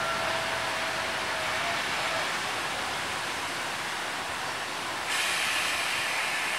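Steam special train behind DB class 41 locomotive 41 096 rolling slowly through a station, heard from an open carriage window: steady running and wind noise, with a faint thin tone that fades out about two seconds in. About five seconds in, a louder hiss sets in suddenly.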